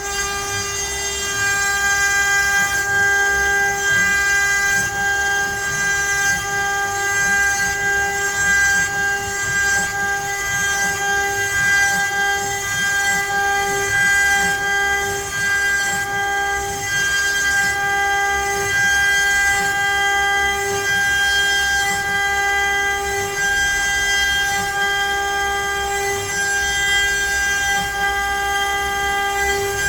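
CNC router spindle running with a steady high whine while the bit cuts letters into pine, with a rough, uneven cutting noise underneath that swells a little in the first couple of seconds.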